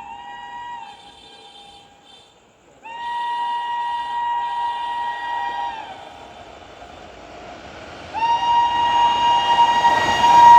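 WAP-7 electric locomotive's shrill two-tone horn sounding in long blasts. One blast ends about a second in, a second lasts about three seconds, and a third starts near the end, getting louder. Each finished blast sags in pitch as it cuts off.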